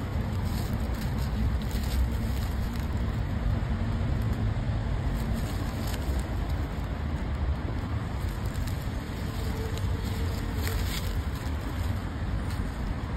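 Steady low rumble of outdoor background noise, with a faint brief tone about ten seconds in.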